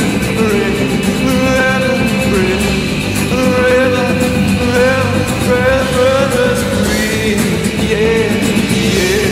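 Rock song playing, a voice carrying a wavering melody over a steady band backing.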